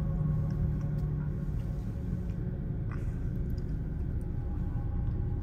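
Low, steady rumble of a car's engine and running gear heard from inside the cabin as the car rolls slowly forward.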